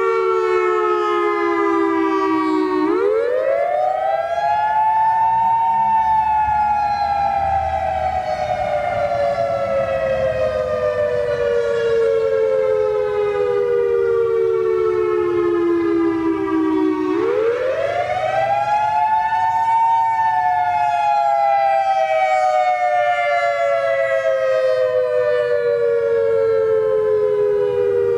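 Federal Signal EOWS 612 electronic fire siren sounding its wail tone on test: twice the pitch climbs quickly over about three seconds, then slides slowly down for about eleven seconds. It sounds as two close tones together.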